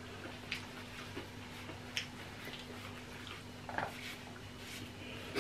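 Faint sounds of people eating at a table: a few scattered soft clicks and rustles, over a steady low hum.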